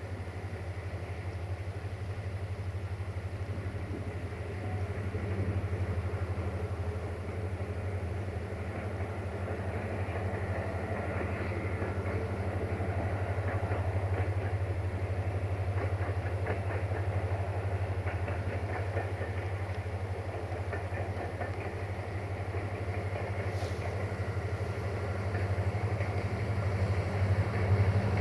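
CFR Class 65 "GM" diesel-electric locomotive 65-1357-0, with its EMD engine, running steadily as it hauls a passenger train. The engine drone grows louder toward the end as the locomotive comes closer.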